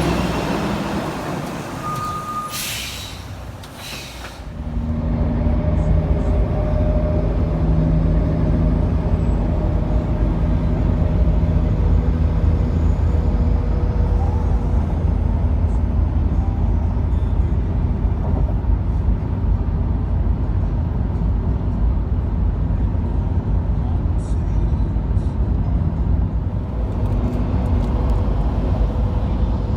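Heavy diesel semi-truck: a brief air-brake hiss in the first few seconds, then a steady, loud low engine rumble that lasts to the end.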